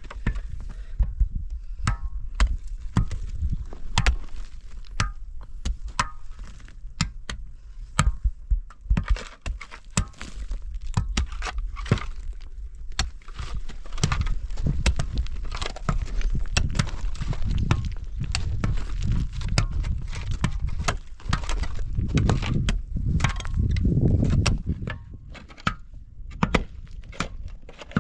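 Many irregular sharp knocks and cracks, with a heavier low rumble and scraping that builds in the second half.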